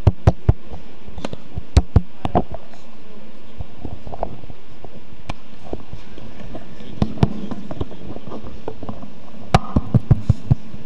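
Crackling from a handheld microphone's line: scattered sharp pops and clicks in small clusters over a steady hiss, with the loudest cluster near the end.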